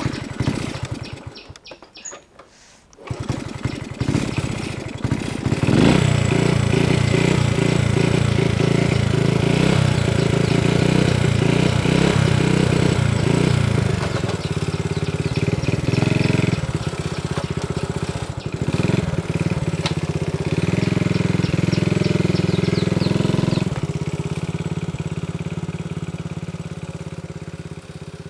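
Old step-through motorbike being kick-started: a kick at the start, then the engine catches about three seconds in. It is revved hard in rising and falling bursts, then runs steadily with the throttle held open, drops to a lower speed near the end and fades out.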